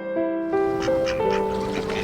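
Background music: held chords and melody notes changing about every half second.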